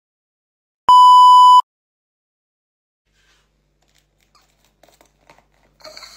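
A single loud electronic beep, one steady tone held for under a second about a second in, with silence around it and a few faint clicks near the end.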